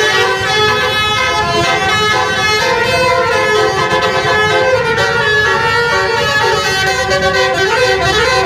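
Indonesian 'telolet' multi-tone bus horn playing a continuous melody of changing notes, loud, with a low rumble underneath.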